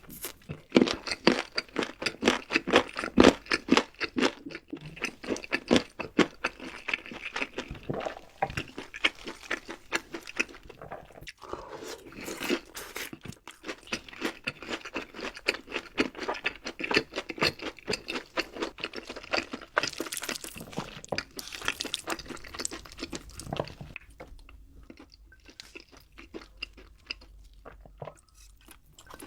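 Close-miked eating sounds: a person biting and chewing crunchy food in rapid, crisp crunches. The sound quietens for the last few seconds.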